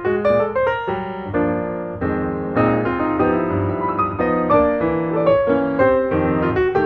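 Background piano music: a continuous flow of struck notes.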